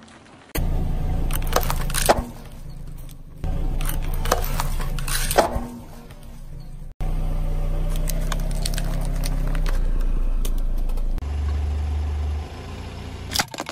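Car tyre rolling over and crushing small plastic objects such as jelly cups and a toy water gun, with sharp plastic cracks and snaps over the car engine's low idling rumble. The rumble stops and starts abruptly several times.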